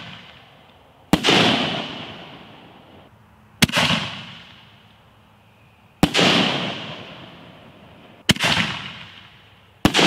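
5-inch canister firework shells launching and bursting: five sharp booms about two to two and a half seconds apart, each trailing off over a second or two.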